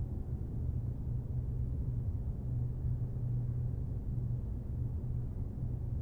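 A steady, deep low rumble, like a droning hum, with nothing sharper above it.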